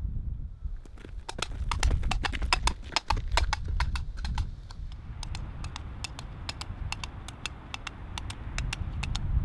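Clip-clop of horse hooves, a quick run of sharp hoofbeats that thins out after about four seconds, over a low rumble.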